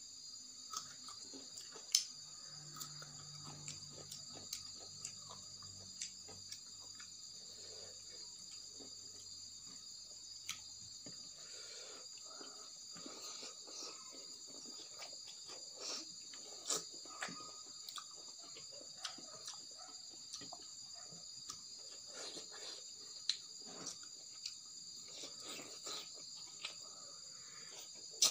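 Close-up eating sounds of someone eating rice and boiled fiddlehead ferns by hand from a steel plate: chewing and mouth sounds with many short clicks, the sharpest about two seconds in. A steady high chirring of crickets runs underneath.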